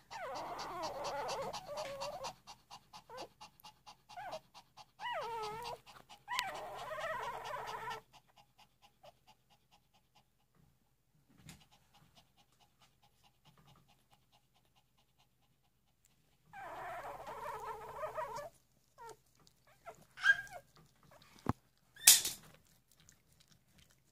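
Three-day-old Shih Tzu puppies whimpering and squeaking while they nurse, in three short bursts of wavering cries with quiet between them. A few sharp clicks come near the end.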